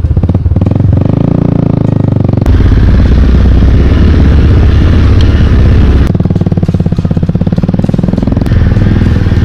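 Motorcycle engine running under throttle while riding a rough dirt trail, its steady pulsing note growing louder about two and a half seconds in and easing off about six seconds in.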